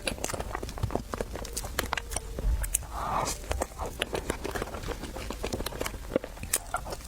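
Close-miked chewing and mouth sounds while eating: a quick, irregular run of wet clicks and smacks.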